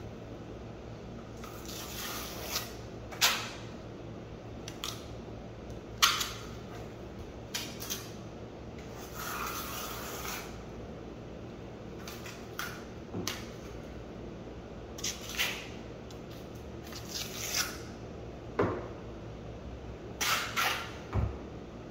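Hand trowel scraping and spreading compound over a concrete subfloor: a dozen or so short, irregular scrapes with pauses between them, and one longer stroke about halfway through.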